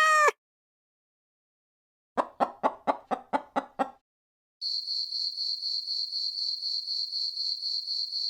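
A string of separate sound effects. A short pitched tone rises and falls and ends just after the start. About two seconds in comes a run of eight quick clucking notes, about four a second. About four and a half seconds in, a steady high-pitched buzz with a fast flutter and faint low chirps begins.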